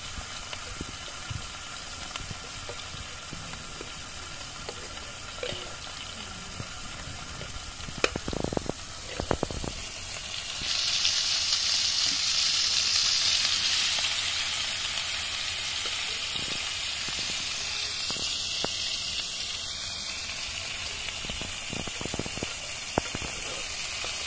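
Pangas fish frying in hot oil: a steady sizzle that turns suddenly louder about eleven seconds in and slowly eases off, after a few knocks and clatters a little earlier.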